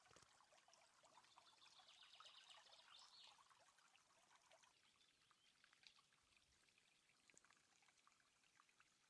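Near silence: faint outdoor background with scattered small ticks, and a faint, high, rapid trill about two seconds in.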